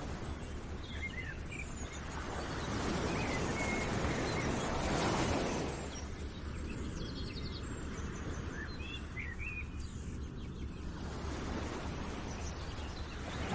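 Outdoor ambience: small birds chirping in short calls over a steady rushing noise that swells about three to five seconds in.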